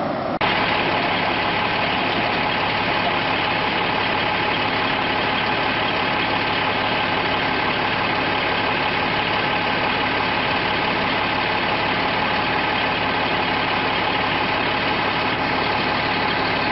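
Fast-moving brown floodwater of a flash flood rushing over a road and around a swept-away car, a loud steady rush of water that starts abruptly just after the beginning.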